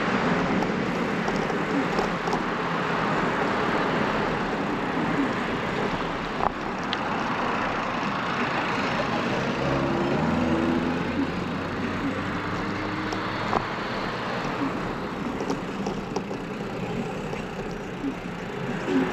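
Steady rush of wind on the microphone and road noise while riding along a street, with a car engine passing briefly around the middle.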